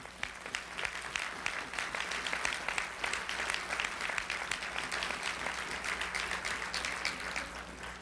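Audience applauding, a dense patter of many hands clapping that thins out near the end.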